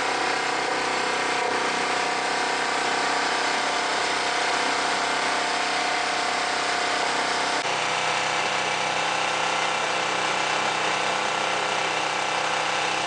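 Steady engine drone, as of a motor vehicle idling, with a slight shift in tone a little past halfway.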